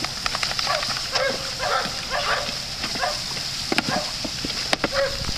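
Dogs barking in play, short calls again and again, over the steady hiss of a sprinkler spraying water, with a couple of sharp clicks near the end.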